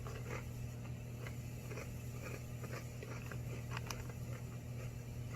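Crunching and chewing on a whole grain Sun Chips tortilla-style chip, a series of short irregular crisp crackles.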